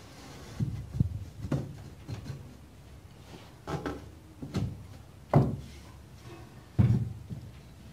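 Pine frame and MDF panel of a small box knocking and bumping against a wooden workbench as the pieces are fitted together and handled: a run of about seven irregular knocks, the loudest a little past the middle and near the end.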